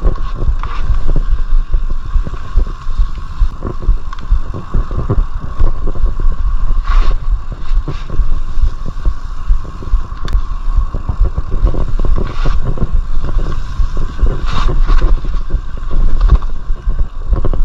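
Mountain bike being ridden over rough trail: a steady low rumble with many small knocks and rattles.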